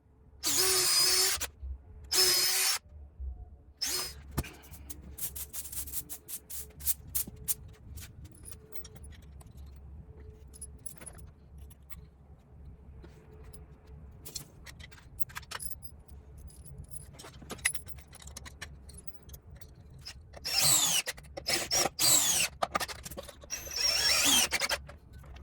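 Power drill running in short bursts, driving lag screws into wood, its pitch falling in the later bursts. In between come scattered clicks and knocks of parts being handled.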